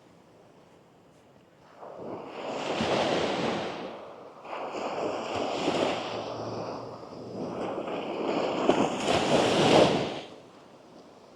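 Gentle sea waves breaking and washing up the sand. After a quiet start the surf hiss swells in about two seconds in, rises and falls three times, then dies away near the end.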